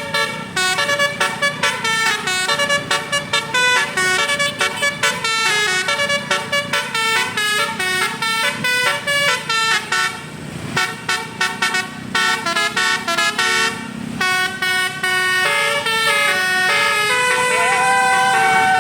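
Basuri telolet multi-tone bus horn playing a fast melody, its notes stepping up and down in quick succession. It pauses briefly about ten seconds in, then ends on longer held notes with a sliding tone.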